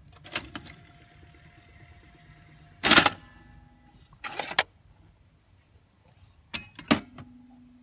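Toshiba βII V-7100 Betamax video cassette recorder ejecting: a piano key pressed with a click, the mechanism whirring steadily for about two and a half seconds, then the top-loading cassette lift springing open with a loud clunk. More clunks follow, then two sharp clicks and a low steady hum near the end.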